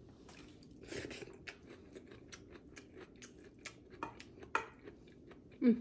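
A person chewing food close to the microphone: a quick, irregular run of crisp crunches and mouth clicks, with a short voiced hum near the end.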